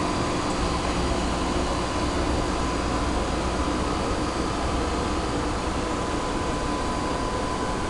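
Steady mechanical running noise, a constant hiss and hum with a faint steady whine, unchanged throughout.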